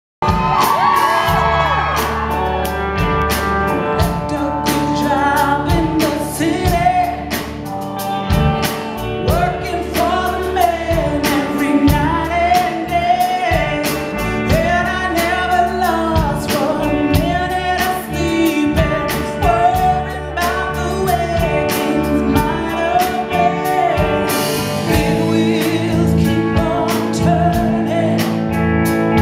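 A woman sings lead into a microphone over band music, with a steady drum beat and a strong bass line.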